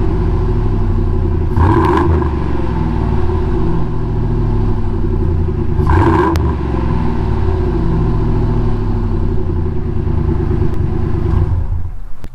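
Ford 5.4-liter Triton V8 of a 2001 F150 running steadily, with two brief revs, one about a second and a half in and one about six seconds in. It stops suddenly near the end.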